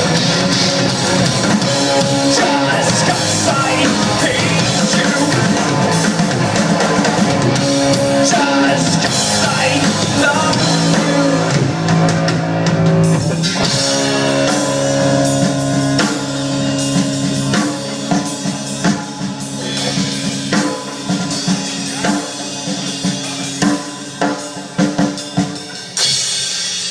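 Rock band playing live: drum kit, guitar and singing. From about halfway the music thins out to a run of separate, sharp drum hits.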